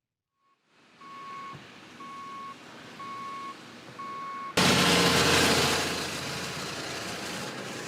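A vehicle's reversing alarm beeping four times, about once a second, over a steady outdoor hiss. About halfway through, a sudden loud rush of noise breaks in and slowly fades.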